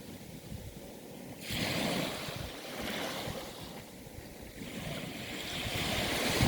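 Sea waves washing in and drawing back, swelling about a second and a half in and again near the end, with some wind buffeting the microphone.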